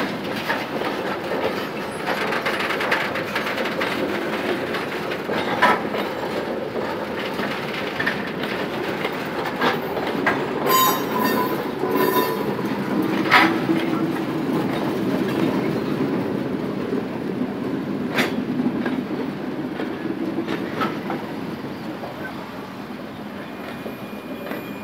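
Loaded coal gondola wagons of a freight train rolling past over the rails, with the wheels clacking and knocking at the rail joints. Around ten to twelve seconds in the wheels squeal briefly, and the rolling sound eases off near the end.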